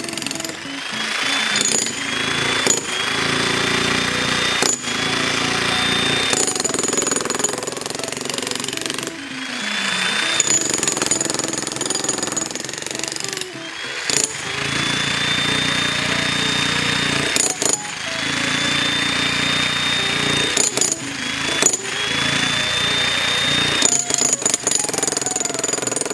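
XtremepowerUS 3600W electric demolition jackhammer breaking a concrete slab, run in repeated bursts a few seconds long. Each burst starts with a rising motor whine, and the bursts are separated by brief pauses.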